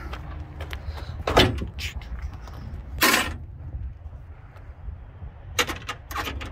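A few sharp knocks and clunks from things being handled around the car, the loudest about a second and a half in, a longer rattling clatter about three seconds in, and two more near the end, over a steady low rumble.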